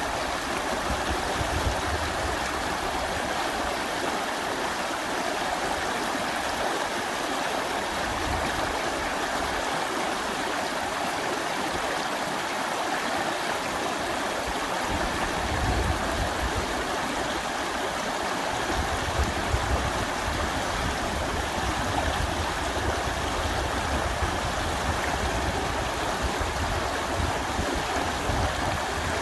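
Mountain valley stream rushing over rocks in a steady, even wash of water noise. A low rumble comes and goes beneath it.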